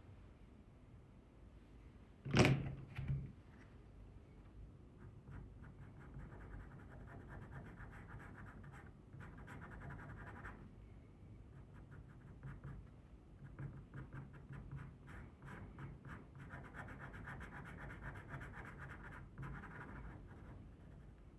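Pastel pencil scratching on Pastelmat paper in many quick, short strokes, with a sharp knock a little over two seconds in.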